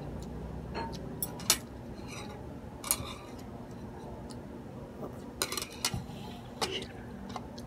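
Scattered light clicks and clinks of tableware: metal chopsticks tapping a ceramic plate, and a drinking glass handled on the table. The taps come singly, a second or more apart, with a quick cluster about two-thirds of the way through.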